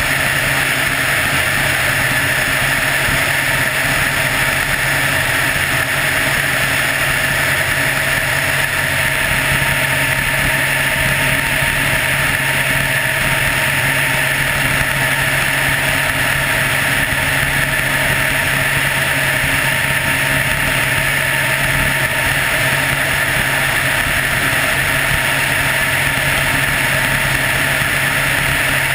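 Helicopter in steady cruise flight: a constant drone of rotor and turbine engine noise with a steady whine, unchanging throughout.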